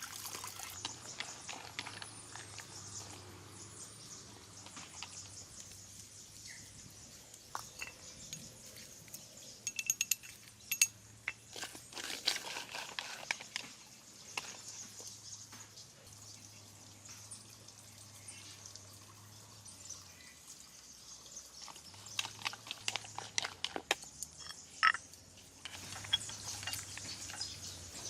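Scattered small clicks and knocks, bunched a third of the way in and again near the end, over a faint steady low hum and hiss.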